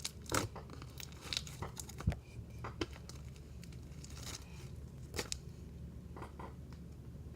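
Slime being handled and pressed by hand, giving scattered small crackles and pops, about one a second, as air bubbles in it are burst.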